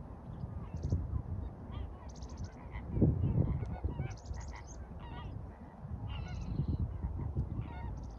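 A flock of greater flamingos calling with many overlapping goose-like honks and some higher chattering calls mixed in. Under the calls runs a low rumble of wind on the microphone, loudest in a gust about three seconds in.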